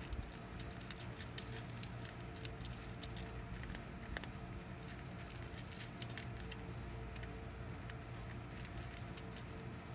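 A cat lapping water: a quick, irregular patter of small wet clicks, over a steady low background hum.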